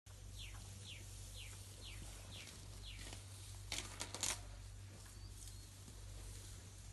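African elephants tearing up grass with their trunks as they graze, a few sharp ripping sounds close by about four seconds in. Before that a bird calls six times, each a short whistled note falling in pitch, about two a second.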